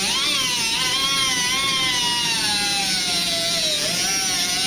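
Pneumatic cutoff tool with an abrasive cut-off wheel cutting through rusted truck rocker-panel sheet metal. It gives a high whine whose pitch sags and recovers as the wheel bites into the metal and eases off.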